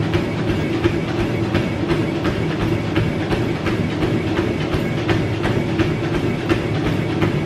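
Running footfalls on a Life Fitness treadmill's belt, an even beat of about three thuds a second, over the treadmill's steady hum.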